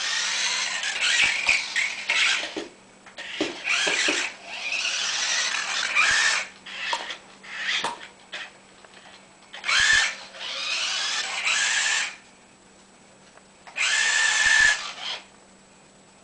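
Remote-control toy car's small electric motor whirring in bursts of a second or two as it drives, starting and stopping about six times.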